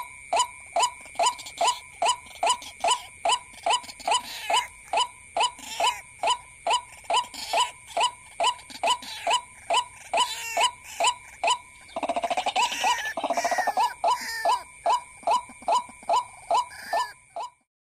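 White-breasted waterhen calls repeated evenly about two to three times a second, the lure call used to draw the bird in, with a faster, louder run of calls about twelve seconds in. A steady thin high whine sits underneath, and the sound cuts off suddenly near the end.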